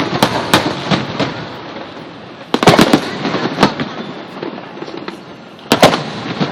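Aerial fireworks going off: sharp bangs in clusters, the loudest about two and a half seconds in and again near the end, over continuous crackling from the bursting shells.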